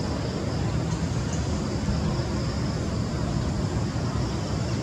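Steady low rumble of distant road traffic, with a faint even hiss above it.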